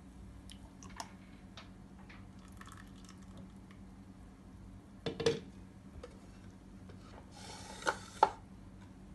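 Juice being poured from a blender jar into drinking glasses, with faint trickles and light taps of glass, then a sharp knock about five seconds in and a brief scrape with two more knocks near the end as the glasses and the blender jar are set down on a stone countertop.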